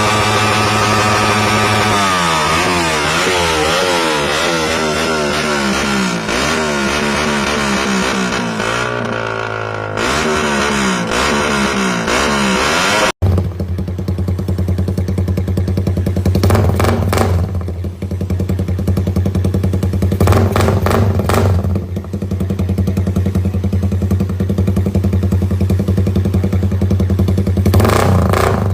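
Suzuki Raider 150 motorcycle with an aftermarket exhaust being revved over and over, its note rising and falling. About halfway through it cuts to another such bike idling with a deep, steady exhaust note, blipped briefly a few times.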